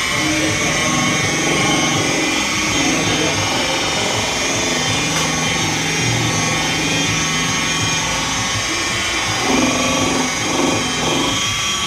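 Corded electric rotary polisher running steadily, its wool buffing pad spinning against a plastic headlight lens to restore it, with a steady whine.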